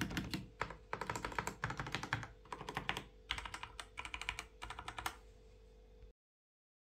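Typing on a Genesis Thor 230 TKL mechanical keyboard fitted with Outemu Red linear switches: quick runs of key clacks in short bursts. The typing stops about five seconds in, and the sound cuts to silence about a second later.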